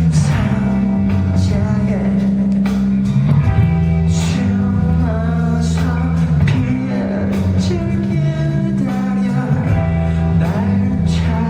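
Live rock band playing loud, with guitars, bass and drums under singing, and cymbal crashes cutting through at intervals.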